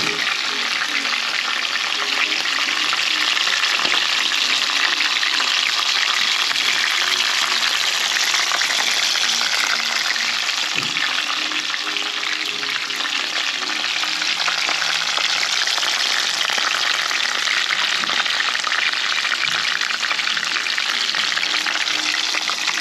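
A whole tilapia frying in hot oil in a pan: a steady, dense sizzle and crackle.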